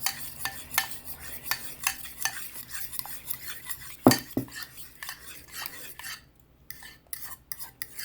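A utensil stirring wet muffin ingredients in a mixing bowl, clicking and tapping against the bowl in quick repeated strokes. One louder knock comes about four seconds in, and the strokes thin out and get quieter near the end.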